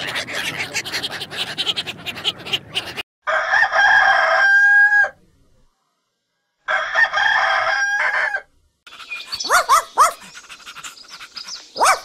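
A flock of domestic ducks quacking rapidly, then a rooster crowing twice, each crow held for about two seconds with a silent gap between. A few short, high rising-and-falling calls near the end.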